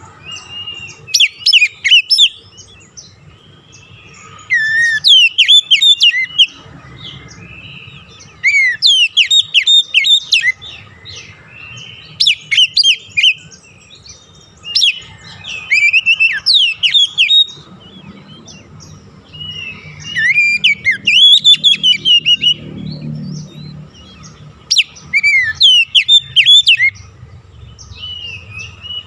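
Oriental magpie-robin (kacer) singing: bouts of fast, varied whistled notes, each a second or two long, repeated with short pauses between.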